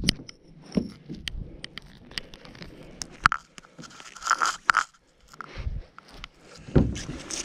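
Gill net being hauled by hand over the side of a riveted metal boat: wet mesh and line rustling and scraping over the hull, with scattered sharp clicks and a few dull knocks.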